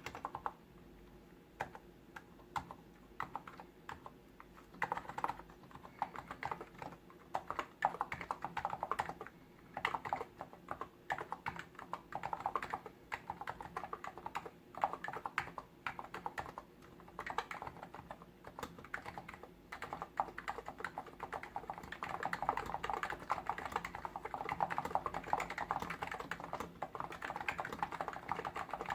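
Typing on a Hansung GTune CHL8 tenkeyless electro-capacitive (non-contact) keyboard: quick keystrokes in runs with short pauses between them, coming thickest and most steadily in the last third.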